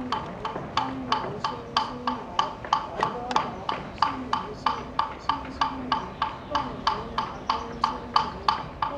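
Wooden fish (muyu) struck steadily at about four knocks a second, the beat of funeral chanting, with a voice chanting underneath.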